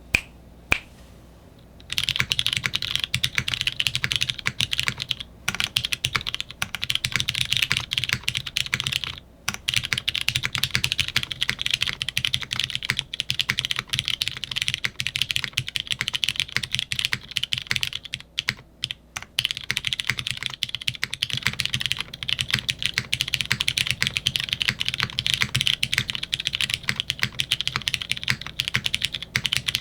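Continuous fast typing on a custom mechanical keyboard: a polycarbonate Bakeneko60 case with a carbon fibre half plate, lubed Cherry MX Brown tactile switches that still tick slightly, and GMK keycaps. Two single key clicks come first, the steady typing starts about two seconds in, with brief pauses about a third and two thirds of the way through.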